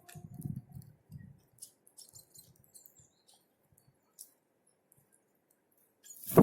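Small forest birds giving short, very high chirps and calls, with a few soft low thuds in the first second or so. Near the end comes one sudden loud thump.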